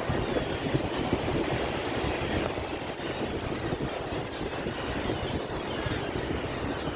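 Sea waves washing in, a steady rushing noise with a heavy low rumble.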